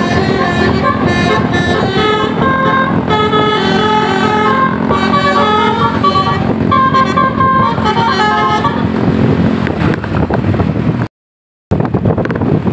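A bus's Basuri telolet horn, a multi-tone horn, playing a quick melody of changing notes that stops about nine seconds in. After it only a noisy rumble remains, cut by a brief dropout near the end.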